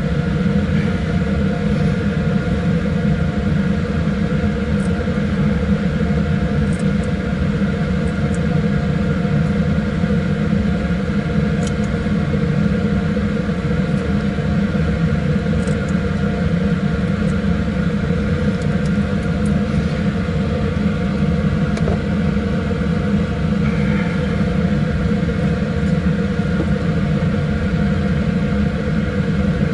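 Steady hum of the blower fan in a laminar flow cabinet: an even drone with several steady tones, with a few faint clicks scattered through it.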